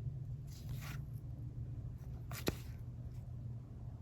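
Trading cards being handled and laid down: two brief rustles of cards sliding, with a sharp click about two and a half seconds in, over a steady low hum.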